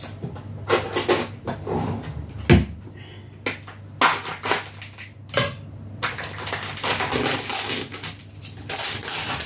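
Clear plastic meat tray and its plastic film crackling and crinkling as the film is peeled open on a pack of raw chicken: irregular sharp crackles, with a longer run of crinkling past the middle.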